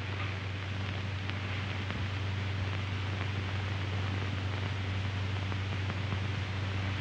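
Steady hiss and low hum of an old optical film soundtrack, with no dialogue, music or sound effects.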